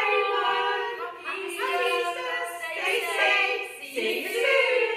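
Voices singing a song unaccompanied, in long held notes.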